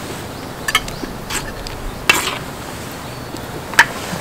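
Eating utensils clinking against dishes: a few sharp clinks, the loudest about two seconds in, over a steady hiss.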